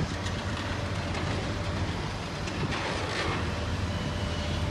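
Diesel engines of tracked demolition excavators running with a steady low drone, with a brief swell of noise about three seconds in.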